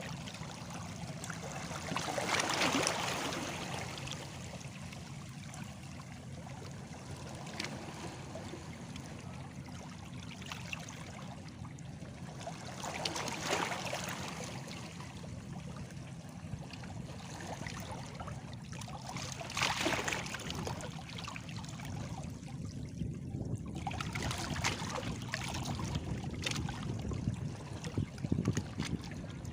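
Small sea waves washing against stones, with a steady lapping and splashing and a brighter splash every several seconds.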